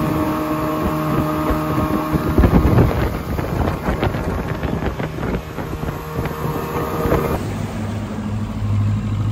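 Motorboat running underway: a steady engine hum with water rushing past the hull and wind buffeting the microphone. The sound shifts at a couple of cuts, turning to a louder rush of water and wind a few seconds in.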